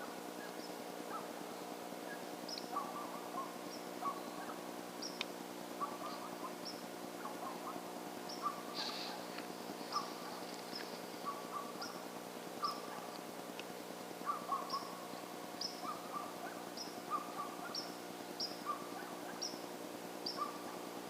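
Wild birds calling: a short, high chirp repeated about every two-thirds of a second, with scattered lower calls in between, over a steady low hum.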